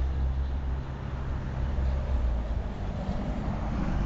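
Road traffic: a steady low rumble that drops away about two and a half seconds in, then a broad hiss of a vehicle passing grows louder near the end.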